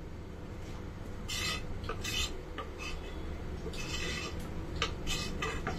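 Metal ladle scraping and stirring thick barley-and-milk pudding in a large metal pot, a few separate scrapes against the pot, over a steady low hum.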